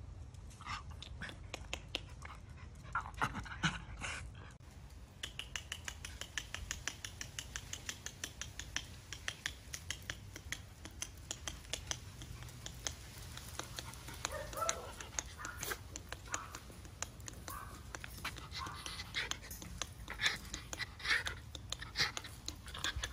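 Miniature schnauzers panting rapidly, with a few short whines.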